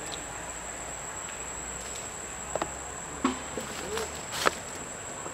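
Steady high-pitched drone of insects, with a few sharp clicks in the second half, the last one the loudest.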